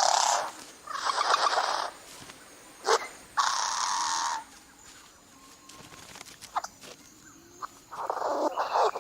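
A courting male bird giving hoarse, wheezy calls from the throat, in bursts of about a second each: three in the first half and one more near the end, with a sharp click just before the third.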